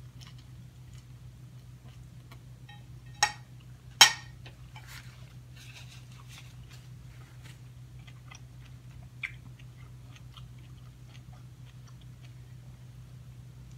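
Close chewing of a leafy spinach and arugula salad, with many small mouth clicks, and two sharp clinks of a metal fork against a ceramic bowl about three and four seconds in, the second the loudest; a smaller clink comes about nine seconds in. A steady low hum runs underneath.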